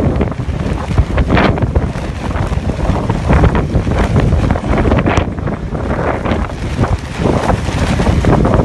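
Transport helicopter hovering overhead with an underslung load: loud rotor noise, with the rotor downwash gusting over the microphone.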